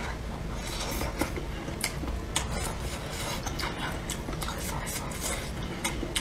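Eating sounds from a spicy hot pot: chewing with many small crunches and clicks, and chopsticks now and then tapping the food container.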